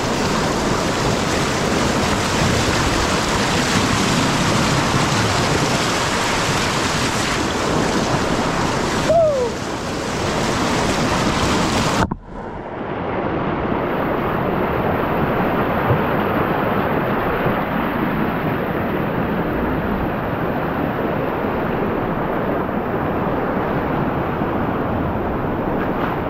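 River rapids rushing and splashing over boulders close to the microphone, a steady loud rush of water. About twelve seconds in the sound breaks off sharply and resumes duller and more muffled.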